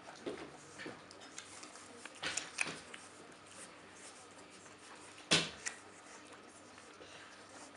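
Scattered light clicks and knocks of basenji puppies moving and playing on a wooden floor and rug, with one sharper knock about five seconds in.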